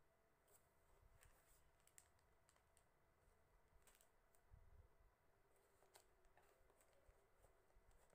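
Faint crinkling and clicking of small plastic zip bags of embroidery beads being handled, in scattered light ticks.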